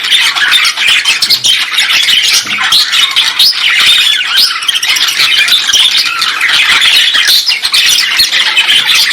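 A colony of many small birds chattering and squawking all at once, a loud, dense, unbroken din of overlapping chirps.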